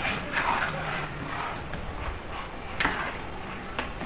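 A few sharp knocks and clatter of kitchen items being handled and set down during cooking, over low background rustle.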